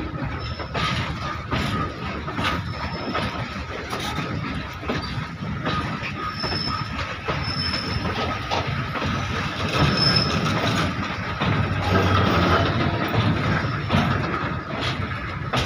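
Open steel freight wagons of a coal goods train rolling past close by: a continuous rumble of wheels on rail, irregular clicks and knocks of the wheels over the joints, and a steady high squeal from the wheels.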